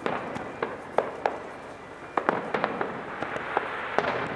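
Aerial fireworks shells bursting in a string of sharp bangs at uneven intervals, a dozen or so, over a continuous rumble.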